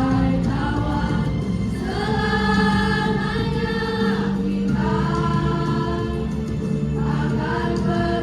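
Elementary school children's choir singing together in long held notes that change every second or two.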